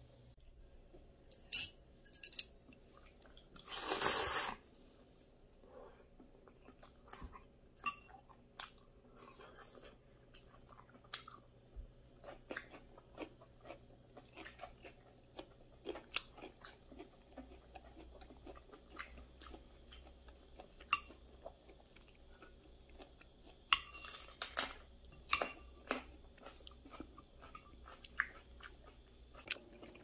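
Close-up eating sounds of instant black-bean noodles and kimchi: chewing and crunching, with many small clicks of cutlery on the dishes. A few louder sharp clicks come in the first few seconds, and there are short louder noisy bursts about four seconds in and again near the end.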